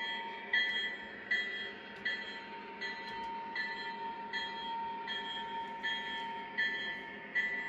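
O gauge model train running, with a bell-like tone ringing about every three-quarters of a second over a steady hum and the noise of the running train.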